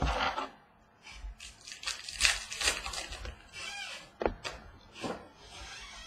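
Trading card packs being handled and opened: wrapper crinkling and rustling in irregular bursts, with a few knocks on the wooden tabletop.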